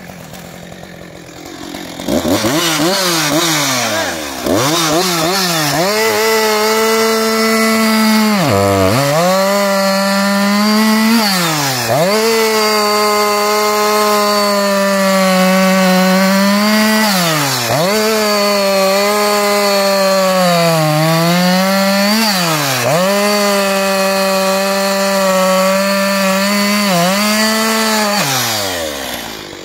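Husqvarna 357 XP two-stroke chainsaw revving up about two seconds in, then cutting through a log at a steady high pitch. Several times the pitch dips and climbs back as the saw moves between cuts, and it drops back toward idle near the end.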